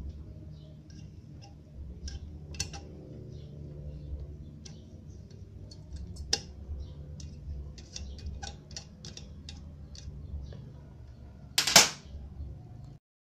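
Scattered light clicks and taps of a soldering iron and metal tool working at the solder tabs of a subwoofer's terminal strip, over a low steady hum. One louder, sharp knock comes near the end.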